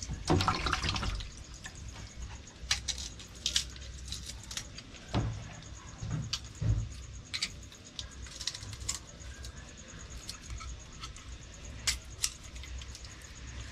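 Kitchen knocks and clinks while garlic is being crushed: about a dozen sharp, irregularly spaced strikes, a cluster in the first second, then single ones every second or so.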